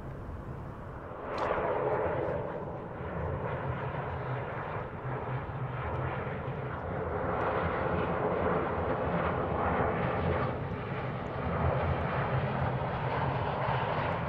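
Jet airliner engines running on the ground, a steady noise that comes up sharply about a second in and holds, wavering in level.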